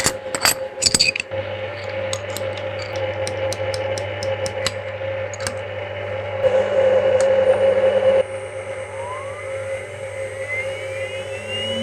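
Sharp clicks of keys or buttons being pressed over a steady hum, then a CNC milling machine's spindle spinning up, a whine rising in pitch over the last few seconds.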